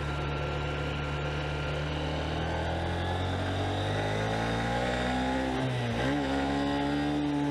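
Honda CB125F motorcycle engine under way, running steadily at first and then revving up from about three seconds in. Near six seconds in the revs dip sharply and climb again, then hold at a higher pitch.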